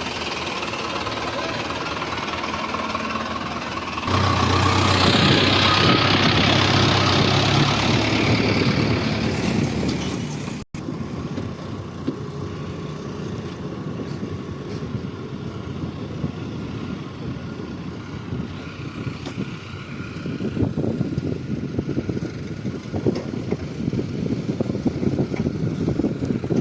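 Heavy diesel machinery engines running. The engine grows much louder for several seconds about four seconds in, then after an abrupt cut a rougher, uneven engine sound follows.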